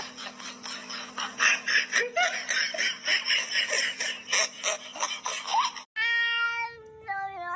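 Cat meowing a few short times amid clattering and a low steady hum. About six seconds in it cuts off and a held, steady-pitched sound follows, stepping between a few pitches.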